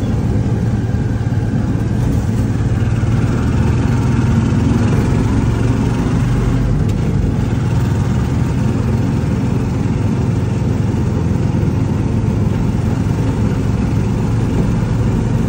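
Motorcycle engine of a tricycle (motorcycle with sidecar) running steadily on the move, a low even drone with road noise, heard from inside the sidecar.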